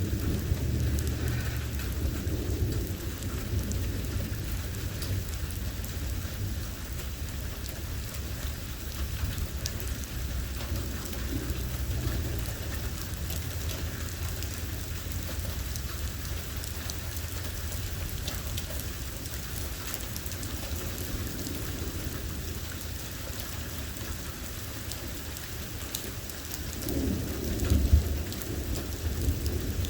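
Rain falling steadily during a thunderstorm, with a continuous low rumble of thunder. A louder thunder rumble comes near the end.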